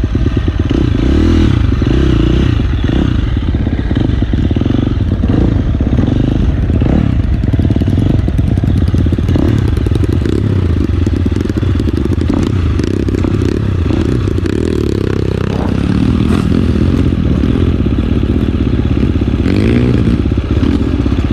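Trail motorcycle engine revving up and down under load, with clattering and scraping as the bike works over rough ground.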